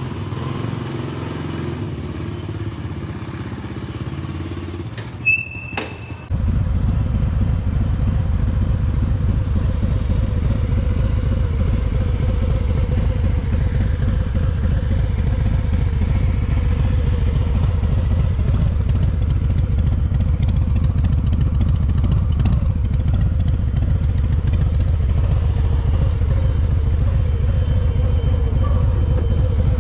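Motorcycle engine running. For the first six seconds it is a quieter low engine sound with a couple of sharp clicks and a short beep. The audio then jumps abruptly to a louder, steady engine drone with fast low pulsing as the motorcycle rides along.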